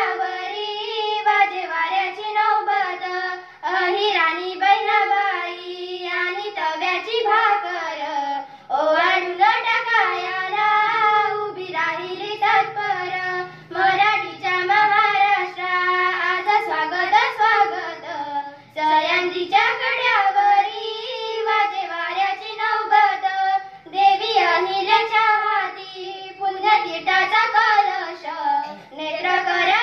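Two schoolgirls singing a Marathi song together into a microphone, one melody line with short breaks between phrases every few seconds.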